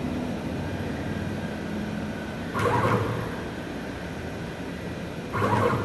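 CNC router's stepper motors driving the gantry in two short jog moves, each about half a second, over a steady low background hum.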